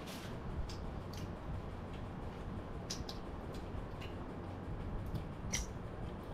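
Quiet eating at a table: a few scattered light clicks and ticks from a spoon in a small bowl and from chewing, over a low steady hum.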